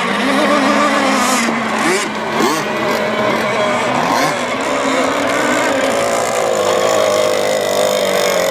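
Several radio-controlled racing hydroplanes running at high revs together, their engine pitches wavering and sliding up and down as the boats race past and through the turns.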